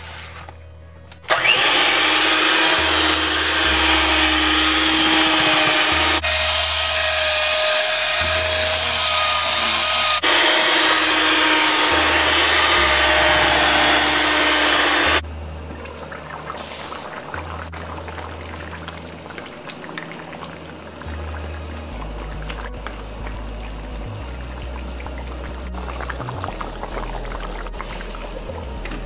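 Electric hand mixer running, its beaters working cake batter in a plastic bowl. The motor whine starts about a second in, shifts pitch twice, and stops about halfway through. Background music with a steady bass plays underneath.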